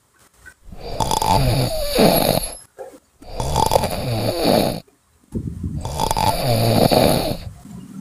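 Water dispenser gurgling and glugging as water is drawn from its large top-loaded bottle, with air bubbling up into the bottle. It comes in three bursts of about two seconds with short pauses between.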